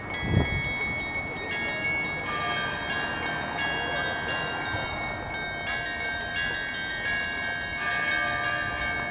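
Saint Sophia Cathedral's church bells ringing, several bells struck one after another, their tones overlapping and ringing on. A low thump about half a second in.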